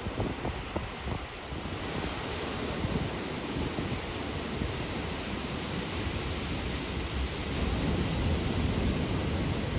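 Ocean surf washing and breaking, with wind buffeting the microphone.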